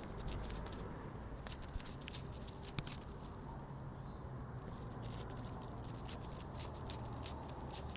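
Butterfly wing-flapping sound effect: quick, irregular soft flutter taps in clusters, thinning briefly around the middle, over a low steady hum.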